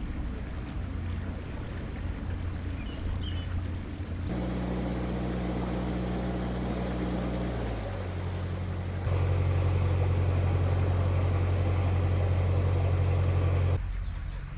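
Narrowboat diesel engine running steadily under way, heard across several short edited clips. The engine note and loudness jump abruptly at each cut, about every four to five seconds.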